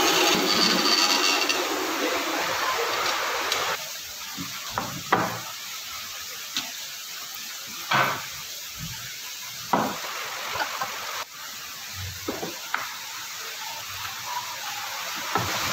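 A bandsaw runs with an even, loud noise as it cuts a wooden block, then stops abruptly about four seconds in. After that, scattered light knocks and rustles of a wooden block and a paper template being handled on a table sit over a steady hiss.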